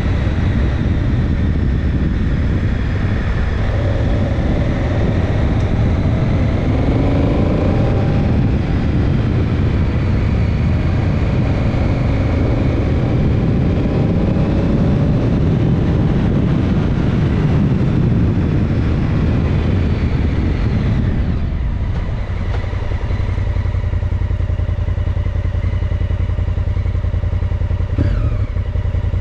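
Honda Africa Twin motorcycle engine running under way, heard from on the bike, its pitch rising and falling with the throttle under a rush of noise. About two-thirds through, the upper rush drops away and a lower, steadier engine note carries on.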